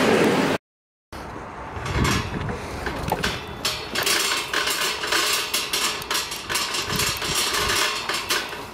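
Empty IKEA wire shopping cart rattling and clattering as it is pushed over asphalt, a dense run of quick metallic clicks.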